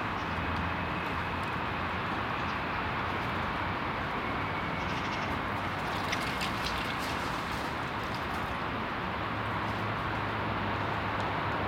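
Steady outdoor background noise with a low hum, broken by a short run of sharp clicks about halfway through.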